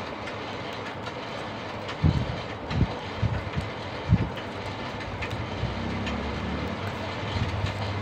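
Enamelled copper winding wire being pulled off a washing-machine motor coil and wrapped by hand: faint light ticks and a few dull knocks over a steady background rumble, with a low hum swelling for a couple of seconds near the end.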